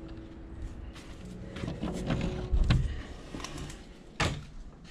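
A door being opened by its latch and handle: a few knocks and handling thumps, then a sharp click just past four seconds in.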